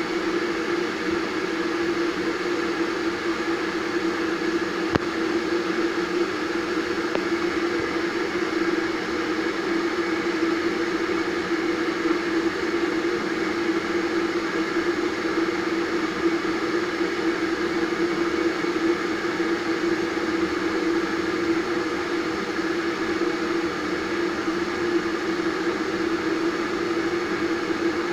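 Vitek VT-1138 electric kettle heating water, a steady, unchanging rushing hiss with a low hum in it.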